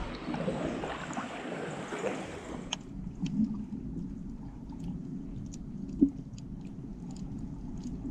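Water sloshing and splashing around a camera held at the surface, then about three seconds in the sound turns dull and muffled as the camera is underwater: a low rumble of moving water with scattered faint clicks and one knock about six seconds in.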